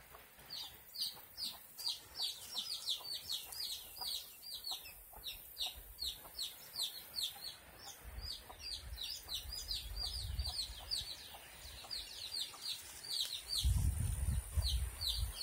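Baby chicks peeping: short, high, falling cheeps, several a second, keep going without a break. About eight seconds in and again near the end, a low rumble on the microphone comes in under them.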